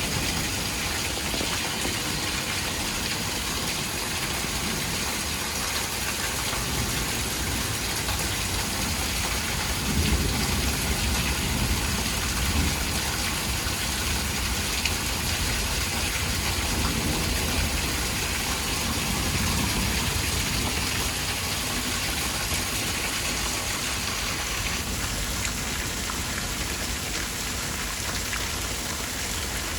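Weather radio static: a steady, loud hiss with no voice, the sound of the receiver left without program audio. A low rumble swells in it around ten seconds in and again near twenty.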